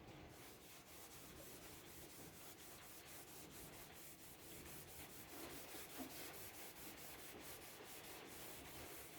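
Faint hand-rubbing strokes on the veneered wood of a loudspeaker cabinet, an even back-and-forth of about three to four strokes a second.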